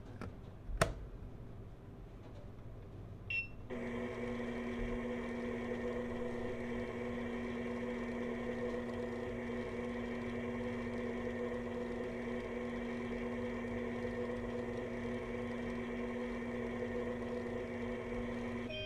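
Toy microwave: a sharp click about a second in and a short beep a few seconds in, then the toy's steady electronic running hum.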